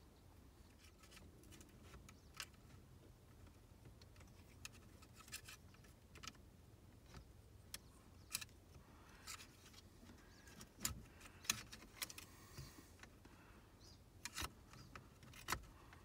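Faint, scattered small clicks and rattles from hands working a turn signal switch's wiring harness and plastic connector through a GM G-body steering column, with the keys in the ignition jingling. The clicks grow a little louder and more frequent in the last few seconds.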